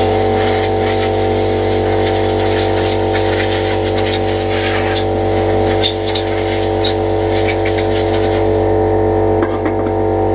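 Air compressor running with a steady hum while a compressed-air blow gun hisses in irregular short blasts. The blowing stops about nine seconds in, and the compressor keeps running.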